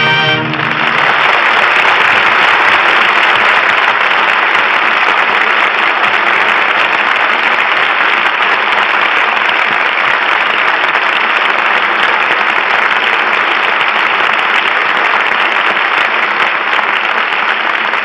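Studio audience applauding steadily, after the orchestra's last chord cuts off about half a second in.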